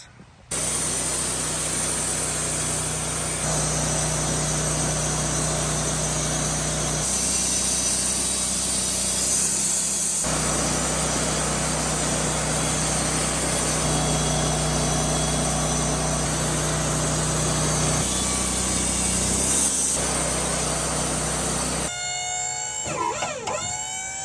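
Sawmill running and its blade cutting through a maple log: a loud, steady sawing noise over a low engine hum, shifting abruptly every few seconds. Near the end it gives way to a quieter, wavering pitched sound.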